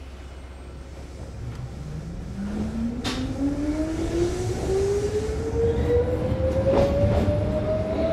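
Mizuma Railway 1000-series electric train pulling away from a station: a motor whine starts about two seconds in and rises steadily in pitch as the train gathers speed. There is a sharp click about three seconds in, and wheels clack over rail joints near the end.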